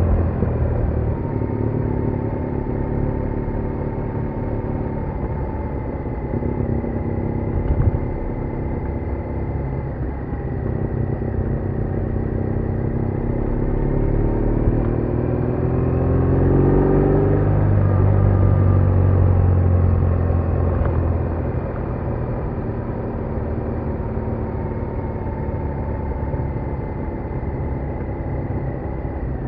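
BMW R1200R boxer-twin engine running steadily under way. In the middle the engine note rises steadily for several seconds as the bike accelerates, then drops back and settles.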